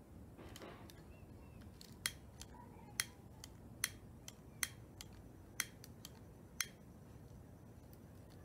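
Faint sharp clicks from a hand-held lighter being worked to light the fire: six clear clicks roughly a second apart, with fainter ones between.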